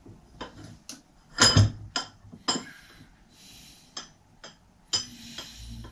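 Irregular metal clinks and taps of hand tools and small parts handled on a workbench, with the loudest clatter about a second and a half in and a short scrape in the middle, during work on a Sturmey-Archer hub gear cable.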